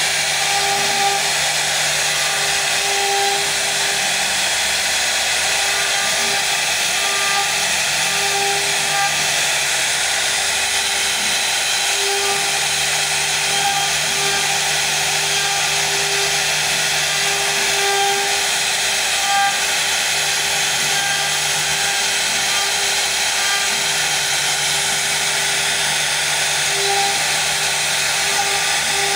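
CNC router spindle cutting wood: a steady whine over dense cutting noise, with small swells in level and a lower hum that comes and goes as the bit works along its path.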